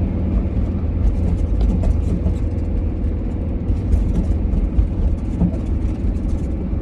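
Minibus on the move with a heavy low rumble, and many short knocks and rattles from the back of the bus as it goes over bumps. It is a bad noise whose cause in the rear is unknown.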